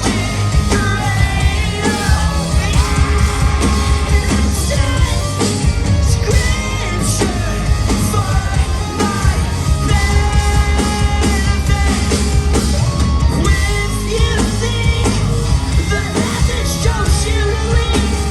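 Post-hardcore rock band playing live through a venue PA: heavy drums, distorted guitars and bass, with high, strained or shouted vocals over the top.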